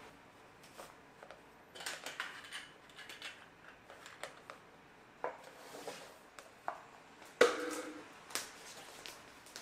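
Cloth rustling and crinkling as its corners are tied in a knot around a bento box, with light handling clicks, and a single sharp knock about seven seconds in as the wrapped box is handled and lifted off the wooden table.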